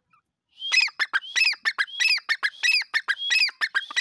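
Grey francolin (teetar) calling loudly in a rhythmic, repeated series: each phrase is a run of sharp clicking notes with a ringing whistled note that rises and falls, about three phrases every two seconds, starting about half a second in.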